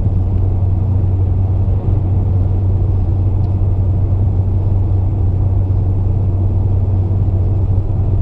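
Steady low drone of a BMW 335i's twin-turbo N54 inline-six cruising at constant speed, with tyre and road noise through snow. There is no revving or change in pitch.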